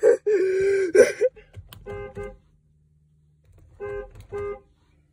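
Dodge Grand Caravan horn honking. One loud blast fills the first second or so, then two short, quieter toots come about two seconds in, and two more about four seconds in.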